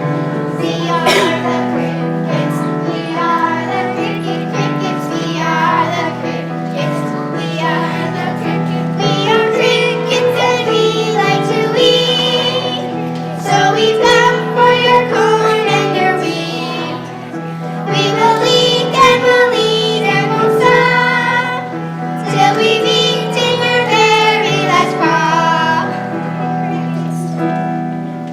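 A group of children singing a song with instrumental accompaniment.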